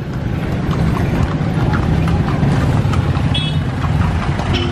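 Busy street traffic: a steady low rumble of engines with the clip-clop of horse hooves from kalesas, horse-drawn carriages. A brief high tone about three and a half seconds in.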